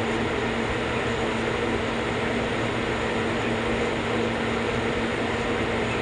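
Refrigeration equipment of a cold room running: a steady machine hum and fan noise with a constant low tone.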